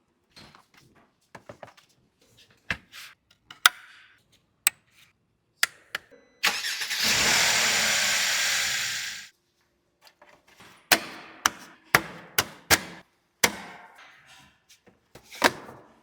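Metal tools and parts clicking and knocking in irregular single strikes during hands-on repair work, with one steady hiss lasting about three seconds midway.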